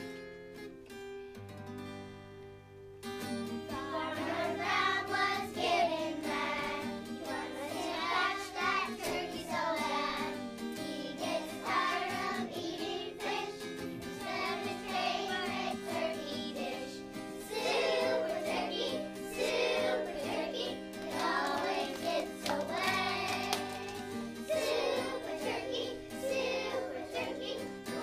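A group of children singing a song together over instrumental accompaniment; after a short instrumental lead-in, the singing comes in about three seconds in and carries on.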